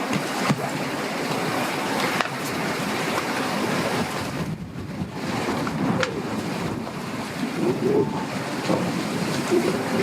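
Strong wind buffeting the microphone over choppy lake water splashing, with a boat engine running in the background. There are a few knocks, and the wind eases briefly about halfway.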